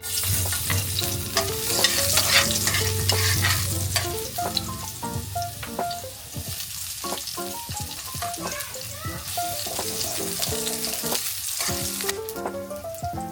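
Food sizzling as it fries in hot oil in a pan and is stirred. The sizzle is loudest in the first few seconds, eases off, then picks up again later.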